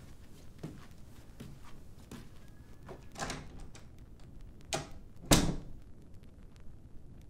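A few soft knocks and thuds in a small room, the loudest a little past five seconds in.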